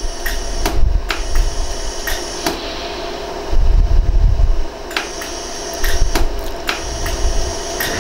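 Pulses of a 100-joule iWeld jewelry laser welder firing on a yellow gold ring while blending a new prong into it: about a dozen sharp snaps at irregular intervals over a steady machine hum.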